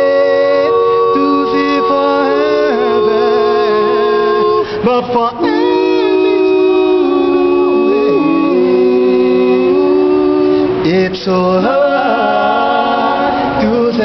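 Male vocal group singing gospel a cappella in close harmony. Several voices hold long chords that shift every second or two, with short breaks about five and eleven seconds in.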